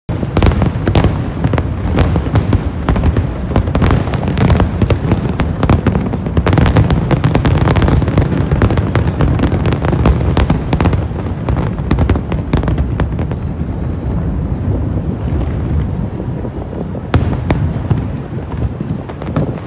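Large aerial fireworks display: a rapid, continuous barrage of shell bursts and crackle over a constant low rumble. The bangs thin out a little in the last several seconds, with one sharp bang near the end.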